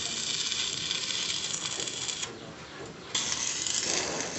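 Electric arc welding on truss steel: a steady crackling hiss from the arc that breaks off a little past two seconds in and strikes up again about a second later.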